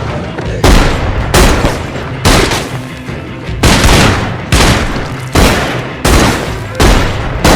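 A run of heavy fight impact hits, blow after blow, about ten of them spaced under a second apart, each sharp with a short echoing tail, over a low steady rumble.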